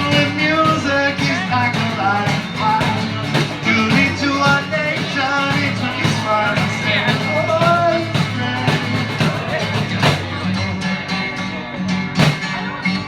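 Live accordion music with percussion: held accordion chords under a bending melody line, with steady percussion strikes; the low chord drops out for about a second near the end before coming back.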